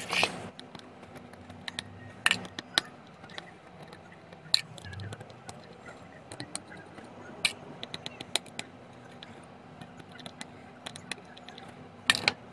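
Small precision screwdriver working the screws out of a Western Digital 8 TB hard drive's circuit board, with scattered sharp clicks and taps of the tool and handling, a few louder ones standing out.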